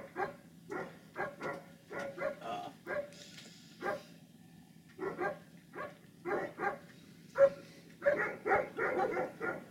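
A dog barking repeatedly: short barks about two or three a second, with a brief pause about four seconds in.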